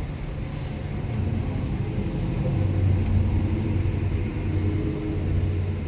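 Steady low machine hum with an even pitch, growing a little louder about two seconds in.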